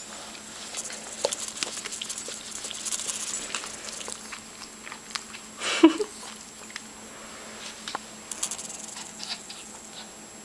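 Papillon dog excitedly moving about, claws clicking and pattering on the floor, with a single short whine about six seconds in that falls in pitch.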